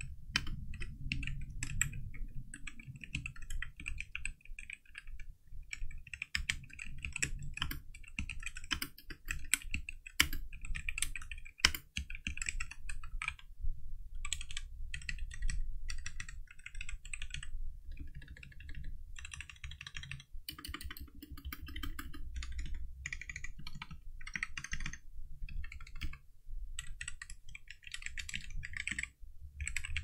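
Typing on a Machenike K500 hot-swappable mechanical keyboard with red switches: keystrokes clacking in fast runs with short pauses, one strike clearly louder a little before the middle.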